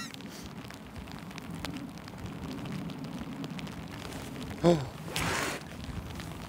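Wind buffeting the microphone outdoors: a steady low rumble with faint crackling, broken by a brief voice-like sound just under five seconds in and a short hissing gust right after it.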